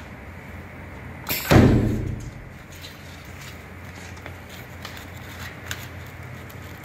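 A single loud thump with a short rush of air about a second and a half in, typical of the pneumatic work clamp of a HighTex FIBC911-400H automatic big-bag sewing machine, over a steady low hum from the idling machine.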